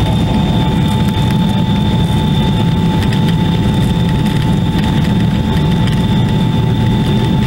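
Airliner's jet engines at takeoff power, heard from inside the cabin during the takeoff roll: a loud, steady low rumble with a steady high whine. The cabin is rumbling over a rough runway.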